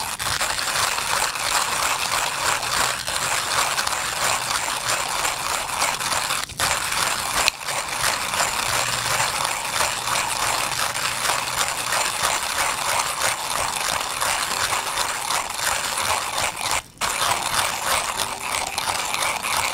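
1Zpresso E-Pro hand coffee grinder being cranked steadily, its burrs crunching through whole coffee beans at a pour-over grind. The grinding breaks off briefly a few times.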